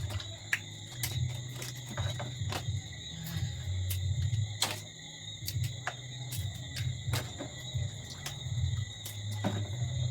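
Crab shell and leg joints being broken off by hand: several sharp cracks, the clearest about half a second in, near the middle and near the end. Underneath are a steady chirring of crickets and a low hum.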